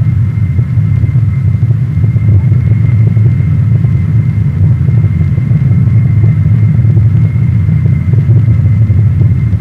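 Jet aircraft engines in flight: a loud, steady low rumble with a thin, steady whine above it.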